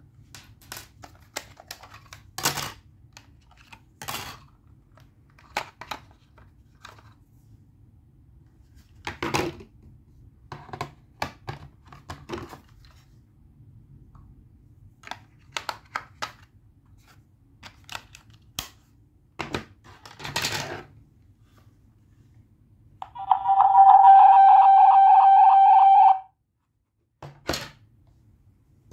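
Clicks and knocks of plastic parts being handled as a video doorbell's case is opened and its flat battery fitted, then, about 23 seconds in, a loud, rapidly pulsing electronic beep from the doorbell set that lasts about three seconds and cuts off suddenly.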